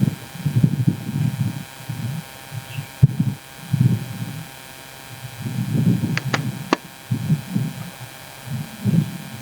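Steady electrical hum with irregular low rumbles, and three quick clicks about six seconds in.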